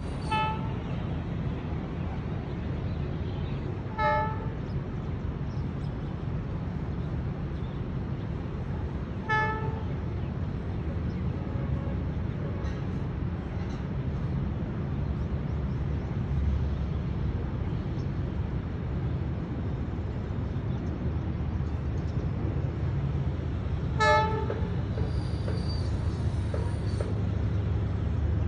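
Four short, high-pitched horn toots, at the start, about four and nine seconds in, and about twenty-four seconds in, over a steady low rumble that grows toward the end as a diesel locomotive draws near on the track.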